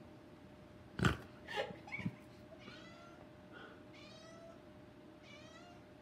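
A few knocks about a second in, the first the loudest. Then a domestic cat makes three short, quavering chirp-like meows, about a second apart.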